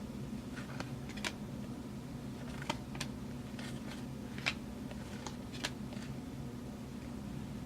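Football trading cards being handled and flipped through by hand: scattered light clicks and snaps of card edges, about seven or eight spread across the stretch, over a steady low hum.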